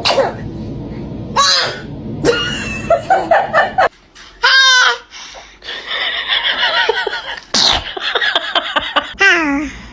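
Laughter and high-pitched squealing, with a few short, sharp sneezes in between.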